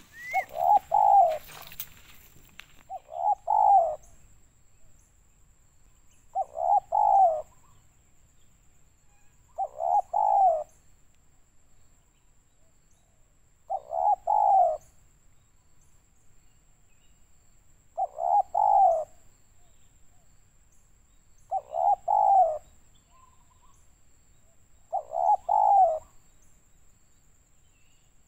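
Spotted dove cooing: eight short phrases of low coo notes, repeated about every three and a half seconds.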